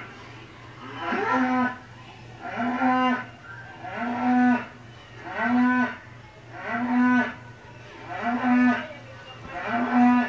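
A toddler mooing in imitation of a cow: seven drawn-out moos, each rising and falling, about a second and a half apart.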